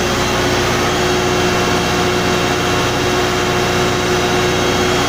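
87.5 kVA emergency diesel generator running at steady speed just after its battery start: a loud, even engine drone with a constant hum.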